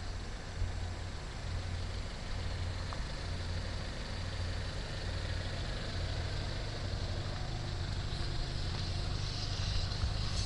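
Renault Scénic's engine idling steadily, a low even rumble.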